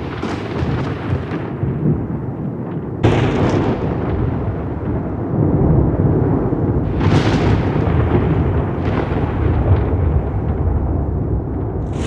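Thunder rumbling continuously, with sharp cracks at the start and again about three, seven and nine seconds in, each sinking back into the rolling rumble.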